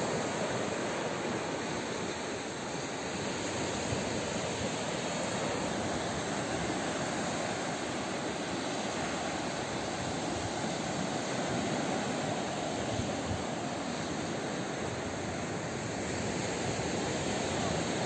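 Surf on a sandy beach: small waves breaking and washing up the shore, a steady rush of water.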